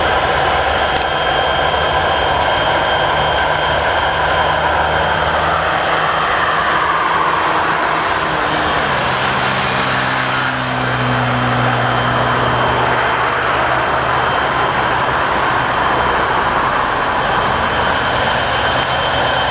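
Boeing 777 freighter's twin GE90 turbofans at high power as it accelerates along the runway on its takeoff roll: loud, steady jet noise. Whining tones slide downward midway, and a deep hum strengthens about halfway through.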